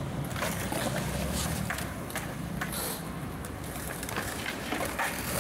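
Skateboard wheels rolling over concrete with a steady rumble, broken by a few sharp clacks of the board.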